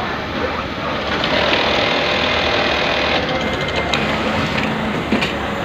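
Automatic welt (bone) pocket sewing machine running through its cycle: a steady high whine from about a second in until past three seconds, then a quick run of clicks and a single knock near the end.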